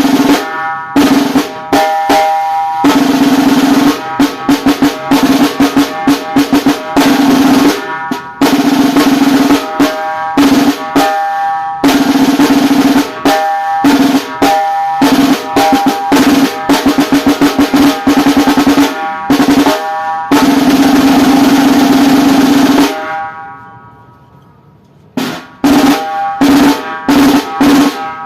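Inexpensive snare drum played with sticks: long rolls of several seconds broken by groups of single strokes, the drum ringing under each. About 23 seconds in the playing stops and the ring dies away, then strokes and another roll start up again.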